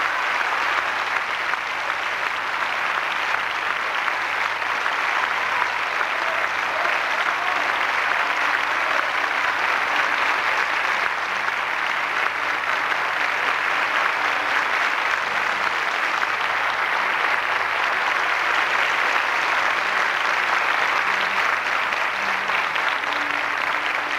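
Audience in a concert hall applauding steadily, a long unbroken ovation for a just-finished operatic aria.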